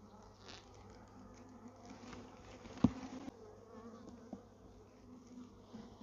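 Honeybees buzzing in a steady, wavering hum around an opened mating nuc as a bee-covered frame is lifted out. A single sharp knock sounds about three seconds in.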